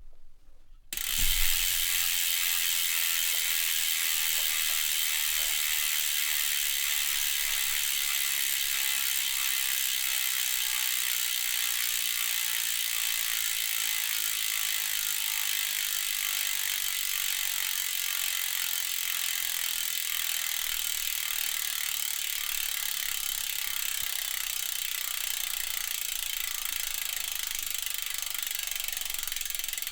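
Hope Pro 4 rear hub's freehub pawls buzzing as the wheel freewheels, a fast, even ratcheting sound that starts with a thump about a second in and fades very slowly as the wheel slows.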